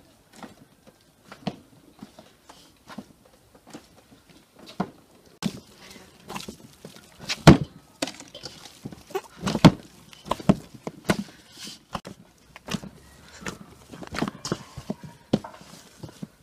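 Hands kneading a soft yeast dough in a stainless steel bowl: irregular wet squelches and dull thumps as the dough is pressed, folded and pushed against the bowl. The loudest thumps come around the middle.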